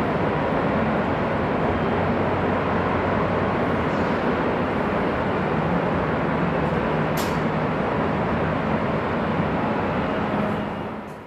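Dense freeway traffic: a steady wash of tyre and engine noise from many passing vehicles, with a short sharp hiss about seven seconds in. The sound fades out near the end.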